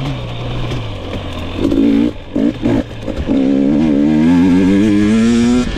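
GasGas EX 250 two-stroke fuel-injected (TPI) dirt-bike engine. It runs low and falling at first, blips the throttle a few times about two seconds in, then is held at high revs with a slightly wavering pitch, dipping briefly near the end.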